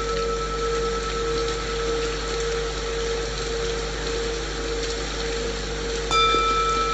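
Steady rain noise under the long low ring of a singing bowl. About six seconds in, the bowl is struck again with a clear ring and several higher overtones that hang on.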